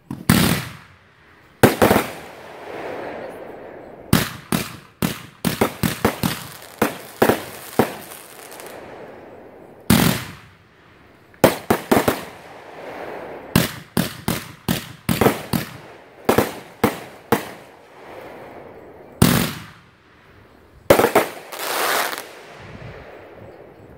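Consumer aerial fireworks bursting overhead: dozens of sharp bangs, some single and some in rapid clusters, each trailed by a fading crackle and hiss.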